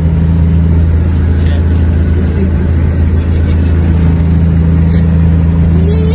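Scania 124 truck's diesel engine running steadily on the road, a deep, even drone heard from inside the cab.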